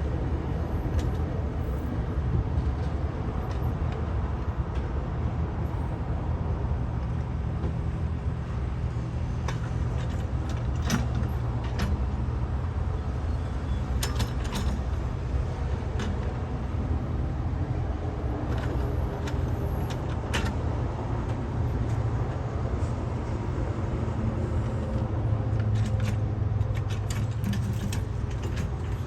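JCB backhoe loader's diesel engine running steadily under work, with a few sharp knocks from the machine, one about a third of the way in and two close together about halfway.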